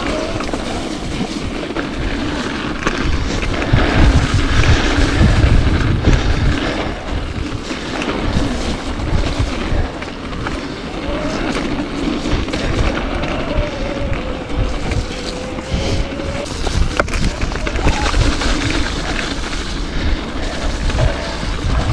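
Mountain bike ridden along a dirt trail: wind buffeting the microphone in an uneven rumble, with tyre noise and clicks and knocks from the bike over the ground.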